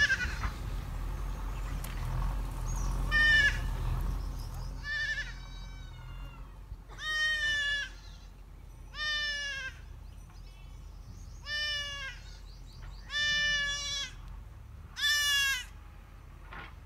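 A goat bleating over and over, about seven wavering bleats coming roughly every two seconds.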